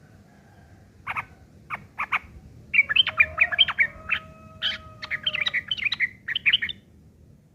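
Yellow-vented bulbul (trucukan) singing: a few sharp single notes, then a fast, rough chattering run of about four seconds that stops suddenly, the harsh chatter that bird-keepers call ngeriwik kasar, laced with imitations of the long-tailed shrike.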